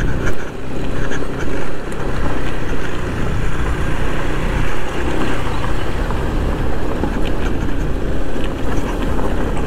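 Honda ADV150 scooter's single-cylinder engine running at steady speed, with wind rushing over the helmet-mounted microphone.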